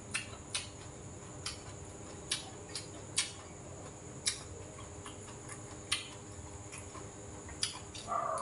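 A person chewing a mouthful of rice and food close to the microphone: a string of sharp, irregular mouth clicks and smacks, about one a second, over a steady faint high hiss.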